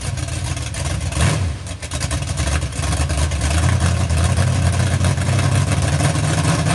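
A 1966 Chevy C10 pickup's 468 big-block V8 at full throttle on a launch, the engine sound dipping briefly about two seconds in and then held high and steady with a hiss over it. The rear tyres are spinning without traction.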